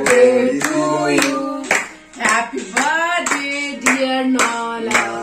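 A small group singing together and clapping their hands in a steady rhythm, about two claps a second.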